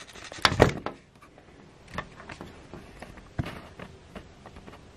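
Handling noise from a handheld camera phone being moved about: a loud rub and knock about half a second in, then scattered light knocks and rustles.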